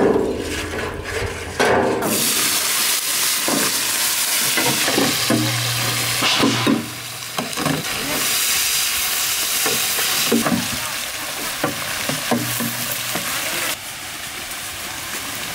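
Sliced onions and green chillies sizzling in hot oil in a large rectangular steel frying pan, stirred and scraped with a long metal spatula. The sizzle starts abruptly about two seconds in and drops off near the end.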